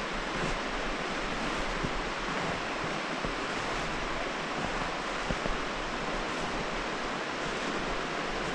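Steady rushing of the Abisko River's flowing water, a constant even hiss, with a light wind rumble on the microphone.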